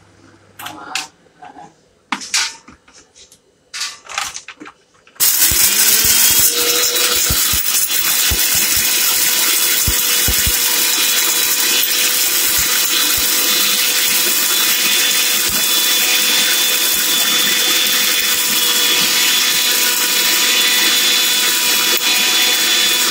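Electric mixer grinder with a steel jar, grinding dry-roasted pepper, cumin, toor dal and fenugreek into powder. A few knocks as the jar and lid are handled, then about five seconds in the motor starts, its whine rising as it comes up to speed, and it runs loud and steady.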